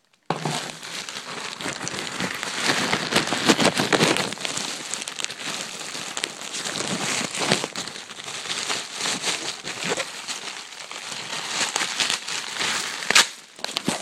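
Plastic packaging crinkling and rustling as it is handled close to the microphone, with many small crackles; it starts abruptly about a quarter second in.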